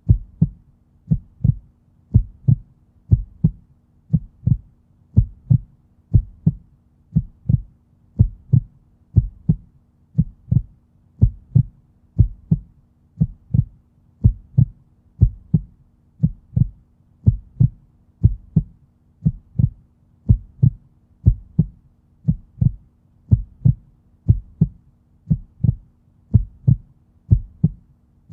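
Heartbeat: a steady lub-dub, two low thumps close together, repeating about once a second.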